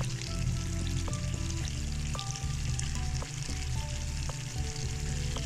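Chicken curry sizzling in oil in a frying pan, with a steady hiss and light crackle. Soft background music with slow held notes plays alongside.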